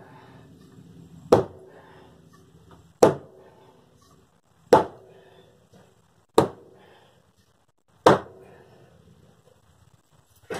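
Heavy blows from a long-handled hammer striking wooden floor framing, five hard whacks at an even pace about 1.7 seconds apart, each dying away quickly.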